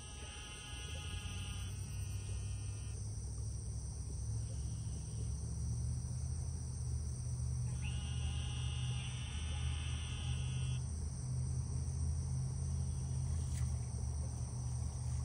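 Steady high-pitched drone of an insect chorus, with a low rumble growing louder underneath. Two steady pitched hums of about three seconds each come near the start and again about eight seconds in.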